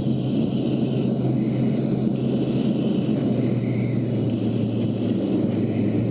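Steady engine drone: a low, even hum with rumble beneath and a faint higher whine, holding level throughout.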